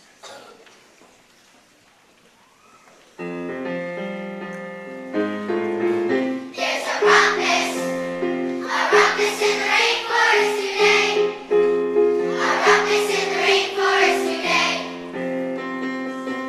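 Faint background sound, then music starts abruptly about three seconds in with sustained chords. Singing voices join about six seconds in and rise and fall over the chords.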